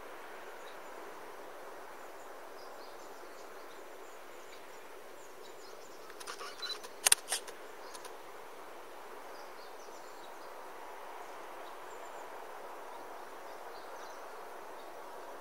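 Steady outdoor background noise of open countryside, with scattered faint high chirps. About six to seven seconds in, a few sharp clicks of camera handling break in, the loudest a single knock near the middle.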